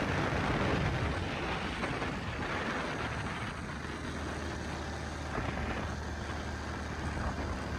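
ATV engine running with a steady low hum under a broad rushing noise of surf and wind, growing a little quieter over the first few seconds.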